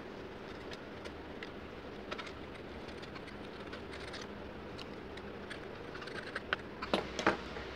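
Utility-knife blade scraping old LCD adhesive off the edge of a Vivo Y93's frame: faint scratching and small clicks, with a few sharper clicks near the end.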